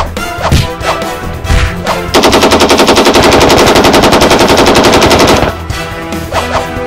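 A few sharp hit sound effects, then a loud burst of rapid machine-gun fire sound effect, about a dozen shots a second for some three seconds, that cuts off suddenly.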